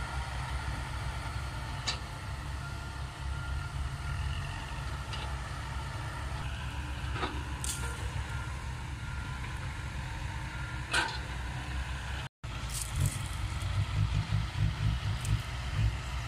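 Low, steady rumble of the heavy diesel engines of six-wheel dump trucks and an excavator working, with a few faint clicks. The sound cuts out completely for a moment about twelve seconds in, then the rumble returns, more uneven.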